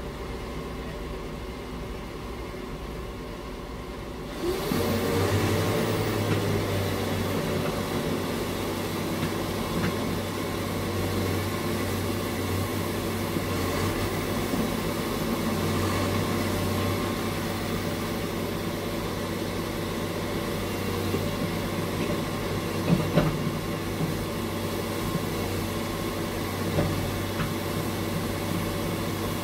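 A Komatsu crawler excavator's diesel engine running under load as it swings and lowers its boom to dig, a steady low engine hum mixed with hydraulic work noise. The sound turns louder and fuller about four seconds in, and a few short knocks come near the end.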